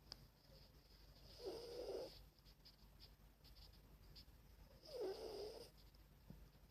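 Dog snoring in its sleep: two snores about three and a half seconds apart, each lasting under a second.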